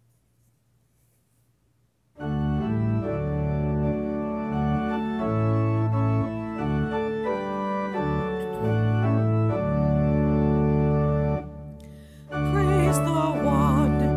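Organ playing a hymn introduction in sustained chords over a steady bass, starting after about two seconds of near silence. It breaks briefly near the end, and then a woman's voice comes in singing with vibrato over the organ.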